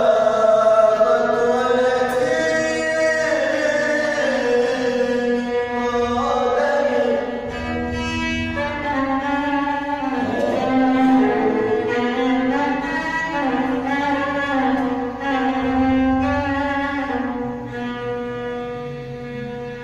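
Music from a devotional Arabic mawwal: a sliding, ornamented melody over a steady held low drone.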